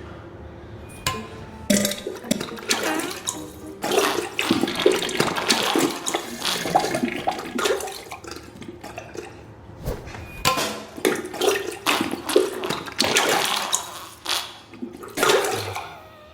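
Diarrhea sound effect: wet sputtering flatulence and splashing into toilet water, in irregular bursts with short pitched blips. It begins after a quieter opening second or two and eases off near the end.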